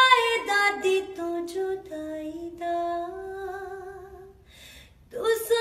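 A woman singing a slow Punjabi devotional melody unaccompanied, with long held notes and gliding ornaments. The line fades away about four and a half seconds in, and after a short pause she comes back in strongly near the end.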